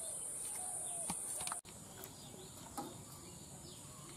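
Rural outdoor ambience: a steady high-pitched insect drone with scattered bird chirps and a few light clicks. The drone cuts off suddenly about a second and a half in, leaving fainter bird calls.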